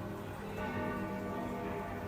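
Grandfather clock with a German movement chiming: several bell-like notes ring and overlap, with a new note struck about half a second in.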